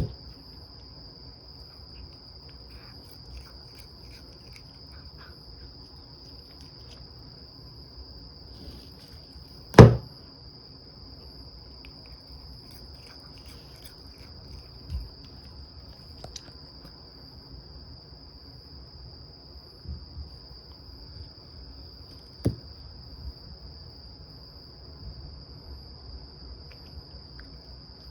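Steady, unbroken insect chirring from crickets, high-pitched. A single loud knock comes about ten seconds in, with a few softer knocks later.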